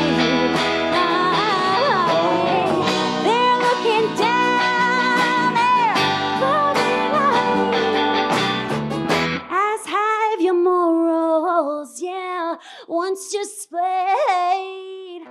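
Live folk band music: a woman singing lead over acoustic guitar and a full band. About nine and a half seconds in, the band drops away and the voice carries on almost alone.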